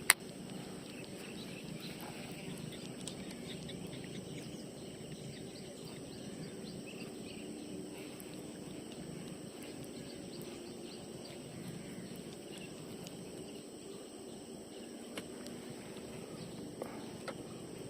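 Steady outdoor background noise with a few faint clicks near the end.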